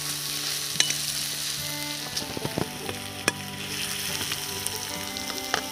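Chopped garlic and onions sizzling as they fry in hot oil in a pan while being stirred, with a few sharp clicks of the stirring utensil against the pan.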